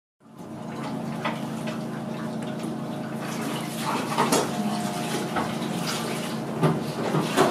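Sushi counter work sounds: a steady hiss with scattered short knocks and clinks of the chef's knife and utensils, bunched about four seconds in and again near the end.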